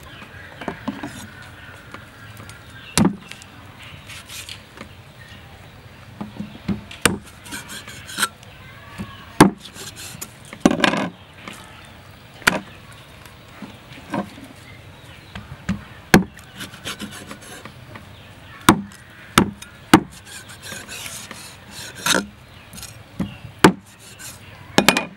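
Knife cutting and scraping through a stingray's tough skin and flesh on a wooden chopping block. Sharp knocks come every second or two as the blade strikes the block, with a longer scrape about ten seconds in.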